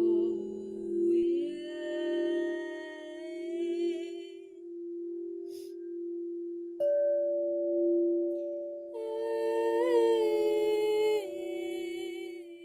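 A singing bowl rings with a steady low tone while a voice hums and tones long held notes over it, one in the first few seconds and another, with a slight wobble, about nine seconds in. A second, higher steady tone comes in suddenly about seven seconds in.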